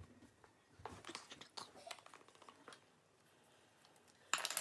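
Light clicks and rustles of objects being handled close to the microphone, with a short, louder rustle near the end.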